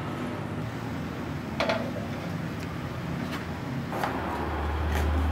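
A kitchen knife striking a wooden chopping board a few times as a root is sliced, with single sharp knocks spaced about a second or more apart, over a steady low hum that grows louder about four seconds in.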